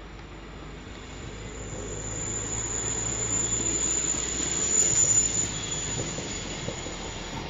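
Regional passenger train running through the station, its rumble growing louder, with a steady high-pitched wheel squeal on the rails that peaks about five seconds in and then eases.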